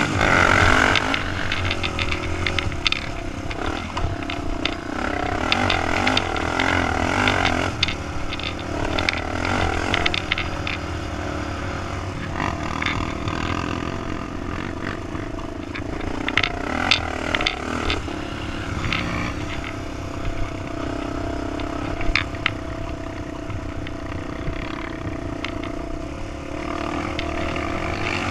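Honda TRX400EX quad's single-cylinder four-stroke engine running under throttle while riding, its pitch rising and falling with the throttle, with frequent sharp clicks and rattles over the ruts.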